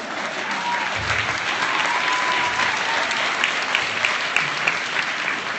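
Audience in a large hall applauding, with a few loud, sharp claps close by about three to four seconds in.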